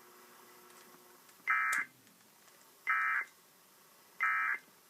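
Three short bursts of Emergency Alert System SAME digital data tones, each about a third of a second long and about a second and a half apart: the end-of-message code that closes the alert.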